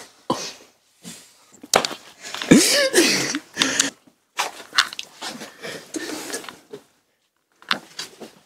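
Stifled laughter and short muffled vocal noises from people trying to stay quiet, in scattered bursts with a few sharp clicks, and a brief squeal that rises and falls about two and a half seconds in.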